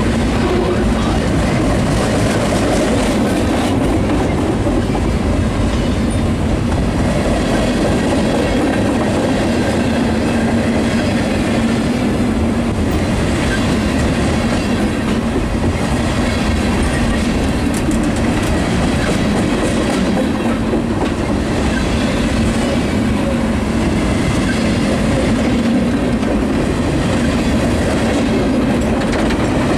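Freight train's boxcars rolling past at close range: a steady, loud rolling noise of steel wheels on the rails with repeated clicks.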